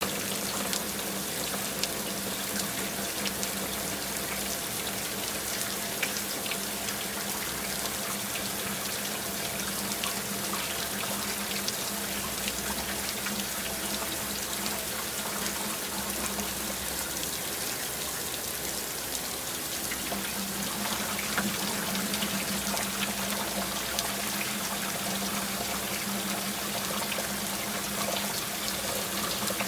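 Steady rain: a continuous hiss dotted with many small drop ticks, holding an even level throughout.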